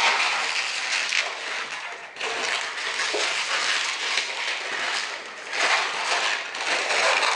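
Latex modelling balloon squeaking and rubbing in the hands as it is twisted and bent, a continuous squeaky crackle with a brief lull about two seconds in.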